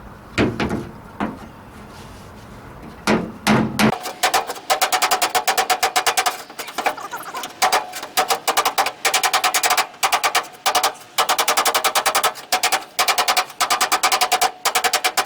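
Hammer striking a 1968 AMX's steel front fender against a dolly held behind the panel, knocking down high spots in the metal. A few scattered knocks, then from about four seconds in rapid runs of quick, ringing metal taps with short pauses between runs.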